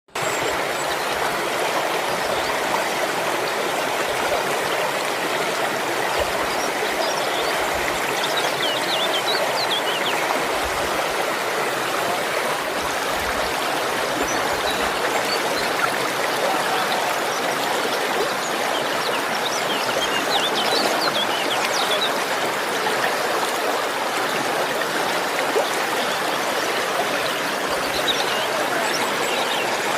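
Stream water running steadily, with a few faint high chirps over it in three short spells.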